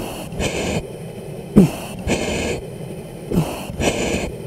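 Breathing through a fighter pilot's oxygen mask, heard over the mask microphone: a hissing breath roughly every second and a half, each with a short falling squeak from the mask's valve.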